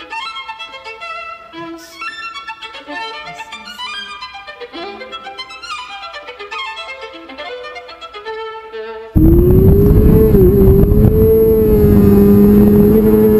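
A violin melody plays. About nine seconds in, a racing superbike's engine suddenly cuts in loud at high revs, heard from on board, its pitch slowly rising as it accelerates.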